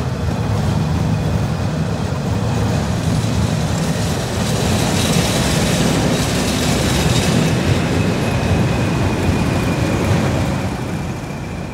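London Underground S-stock cars rolling past with wheel clatter. About five seconds in, a pair of English Electric Class 20 diesel locomotives go by close under power, their engines roaring with a high steady whistle over the top. The sound falls away as they pull off near the end.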